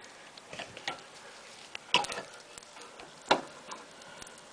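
Small pet, likely a hamster, eating or moving in its cage, making irregular light clicks and taps. Two sharper clicks land about two seconds and three seconds in.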